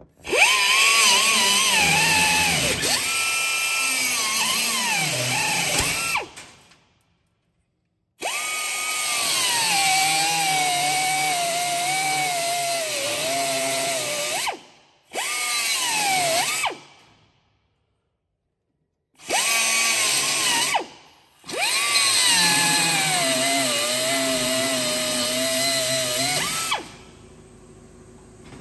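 Air-powered right-angle grinder cutting metal in five runs with short pauses between. Each run is a high whine that sags in pitch as the disc bites and rises again as it comes free.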